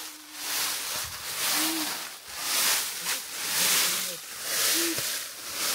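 A hiker breathing heavily, about one loud breath a second, with a few short grunts.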